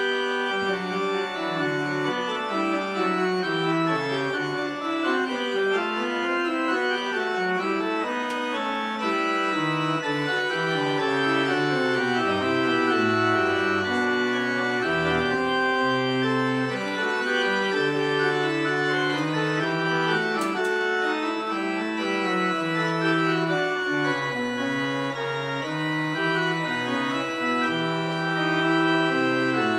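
Pipe organ playing sustained chords over a slowly moving bass line.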